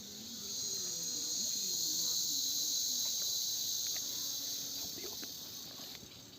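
Chorus of insects, a steady high-pitched buzz that swells louder about half a second in and eases off near the end.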